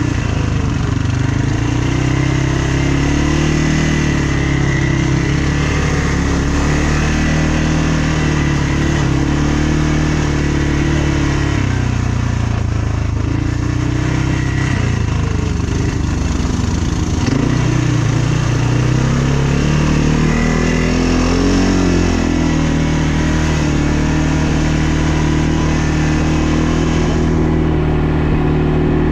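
ATV engine running under way, its pitch rising and falling with the throttle, over a steady rush of riding noise.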